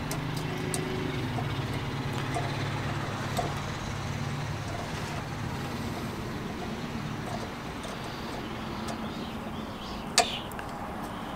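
Small metal clicks of a retaining ring being worked onto a car's new lower ball joint by hand, with one sharper click about ten seconds in, over a steady low engine hum that fades after about five seconds.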